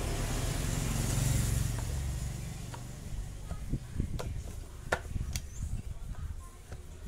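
A low rumble for the first two seconds or so. Then several sharp clicks and knocks of metal on metal as the aluminium cylinder head cover of a Yamaha NMAX 155 engine is pressed down and seated on the head.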